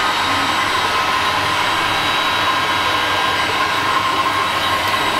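Handheld heat gun running steadily, its fan blowing hot air with a constant whine, aimed at the colour cup of a gravity-feed spray gun.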